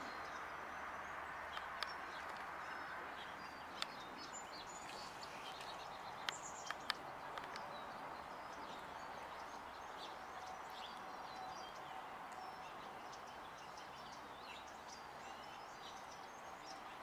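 Birds chirping in short, high notes throughout, over a faint steady background hiss, with a few brief sharp clicks in the first half.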